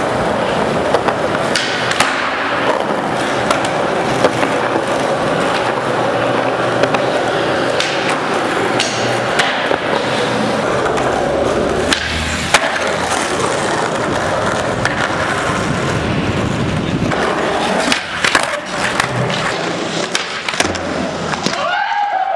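Skateboard wheels rolling on concrete, a steady rolling noise broken several times by the sharp clacks of the board's tail popping and landing.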